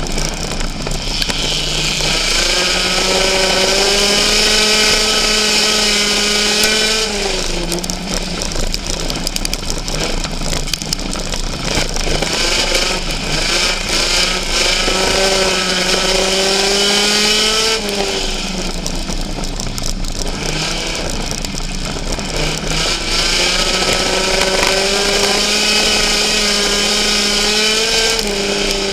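Race car engine heard from inside its own cockpit, run hard down the straights with the pitch climbing and then holding. It drops off sharply three times, about every ten seconds, as the throttle is lifted for the turns, over a steady rush of wind and tyre noise.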